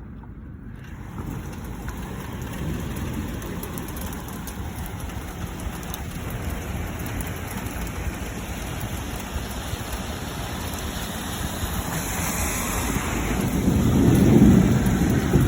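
Steady rain falling, building slightly, with a low rumble of thunder rising near the end.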